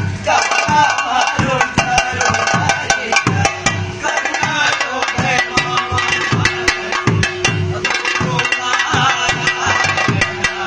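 Theyyam thottam ritual song: a voice chanting over steady chenda drum beats and the dense, sharp clicks of small hand cymbals.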